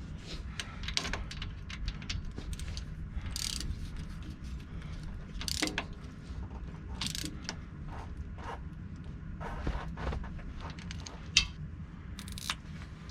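Hand tools working on the U-joint strap bolts at a Jeep Wrangler TJ's front axle yoke: irregular metal clinks, scrapes and ratchet clicks, with one sharp click about eleven seconds in, over a steady low hum.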